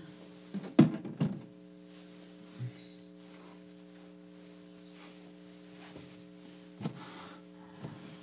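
A steady electrical hum made of several fixed tones, broken by a few dull thumps. The loudest two come close together about a second in, and softer ones follow near the middle and the end.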